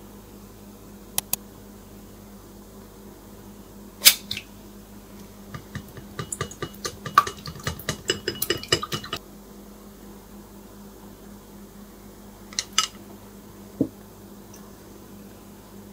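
Utensils clinking on glass mixing bowls during batter prep: a few single taps, then chopsticks beating an egg in a small glass bowl, a quick run of clinks for about four seconds mid-way, and a few more clinks near the end over a low steady hum.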